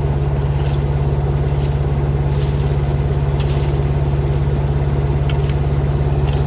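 Mini excavator's small engine running steadily: an even low drone with a fast regular pulse, with a few faint clicks over it.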